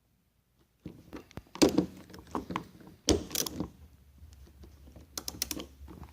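Hand tools and car parts being handled: a string of knocks and clunks, two of them louder, then a quick run of light clicks near the end.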